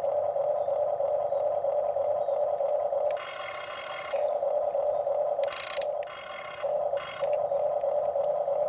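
Electric motors of a Huina radio-controlled toy excavator whining at a steady pitch as the arm and bucket work. The whine drops out a few times, briefly about three seconds in and again two or three times in the latter half, when a fainter, hissier motor sound takes its place.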